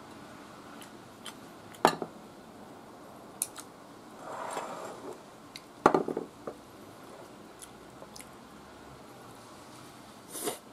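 Wooden chopsticks clicking and knocking against a ceramic plate during a meal, with sharp knocks about two seconds in, about six seconds in and near the end, and fainter ticks between, along with soft chewing.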